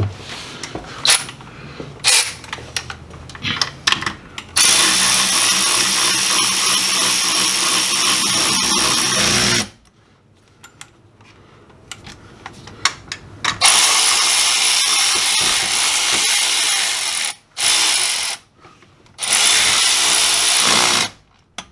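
Cordless drill with a socket spinning bolts into a rear differential housing, in several long steady runs with pauses between. Before that come a few seconds of scattered metal clicks and clanks from handling tools and parts.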